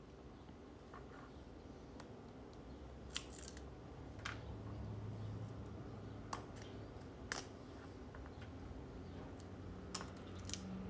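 Small handling noises from a plastic model car body: scattered sharp clicks and crackles as the green forms are pried out of the dried white filler in its wheel arches.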